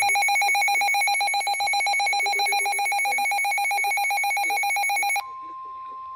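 Loud, rapidly pulsing emergency alert tone for a tornado warning, cutting off suddenly about five seconds in. It is followed by a steady single-pitch tone: the NOAA Weather Radio warning alarm tone that comes before a new tornado warning broadcast.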